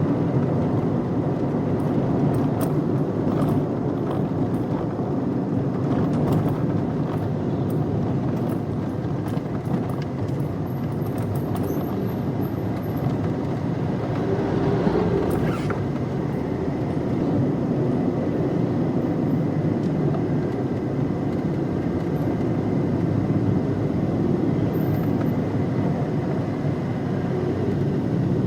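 Interior ambience of a moving car: steady engine and road rumble heard from inside the cabin, with a few faint clicks and rattles.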